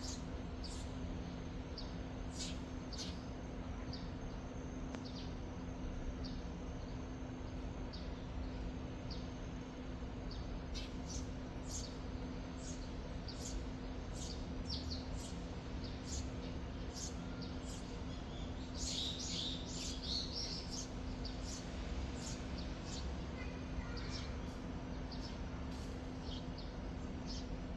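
Wild birds chirping: short high calls repeating every second or so, with a brief busier flurry of song about two-thirds of the way in, over a steady low rumble of wind-like noise.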